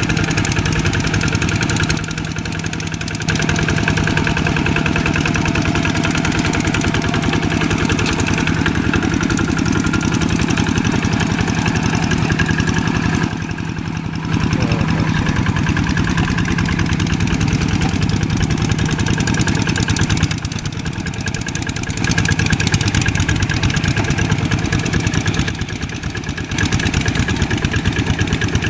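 Old tractor engine running steadily with a fast even beat of firing strokes. Its level drops abruptly and briefly several times.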